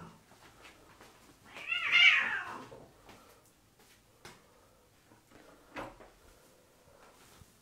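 A cat meows once, about two seconds in: a single loud meow lasting under a second. A couple of faint soft taps follow later.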